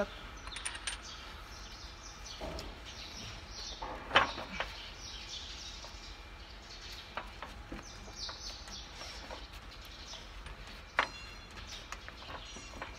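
Occasional metal clinks and knocks from hands working over the exposed rocker arms and injectors of a Nissan GE13 engine, the loudest knock about four seconds in and a sharp click near eleven seconds. Birds chirp faintly in the background.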